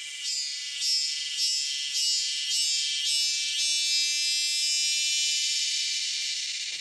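Cicadas buzzing, a loud high-pitched shrill that pulses about twice a second at first, then holds steady and fades near the end.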